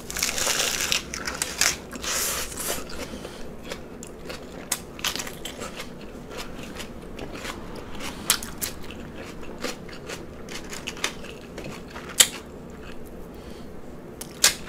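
Close-miked biting and chewing of a lettuce-wrapped cheeseburger slider: two loud crunches of iceberg lettuce in the first three seconds, then chewing with many short, sharp mouth clicks.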